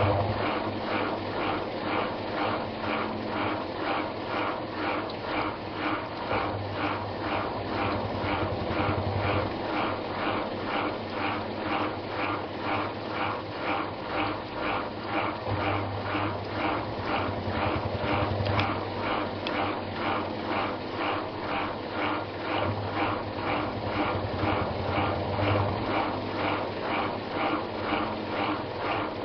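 Samsung WA89V washing machine running its rinse cycle, a steady mechanical churning with an even beat of about two pulses a second over a low motor hum that swells and fades every few seconds.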